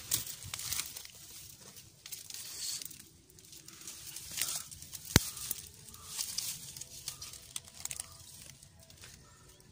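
Rustling and crunching of dry leaf litter, twigs and branches as someone pushes on foot through dense undergrowth, in uneven bursts, with one sharp crack about five seconds in.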